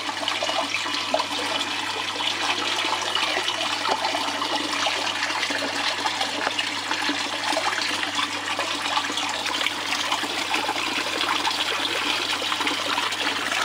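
Water running steadily in a thin sheet over a DIY miller table's mat, washing black sand down the slope, with a steady low hum underneath.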